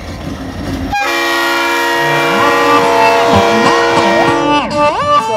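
Diesel freight locomotives rumbling past, cut off suddenly about a second in by intro music. The music is a loud held chord with a melody that bends and glides up and down over it, and near the end only the bending melody goes on.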